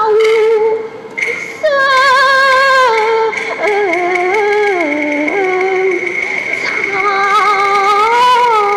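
Cantonese opera singing: a high voice sings long, wavering, ornamented phrases that slide up and down in pitch, with brief breaks near the start. A steady high tone is held behind the voice from about a second in.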